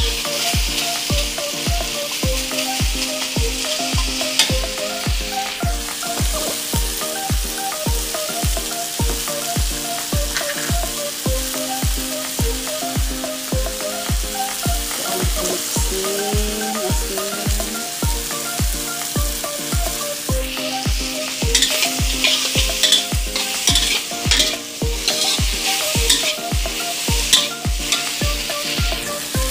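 Sliced okra sizzling in hot oil in a metal wok while a metal spatula stirs and scrapes it against the pan. The scraping and clacking come thicker in the last third. A steady low beat with held tones runs underneath.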